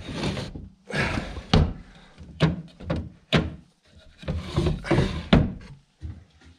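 Wooden cabinet drawers sliding open and shut in turn, each slide a rubbing noise, with several sharp knocks as drawers bang closed.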